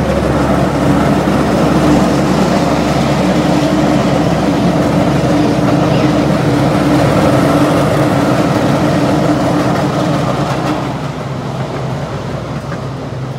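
Small park train running along its track, heard from aboard: a steady rumble with a constant low hum, dropping a little in level about ten seconds in.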